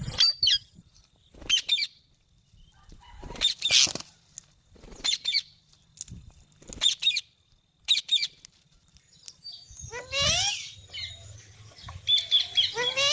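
Pet green parrot giving short, harsh squawks repeated every one to two seconds, several with a rising pitch in the second half.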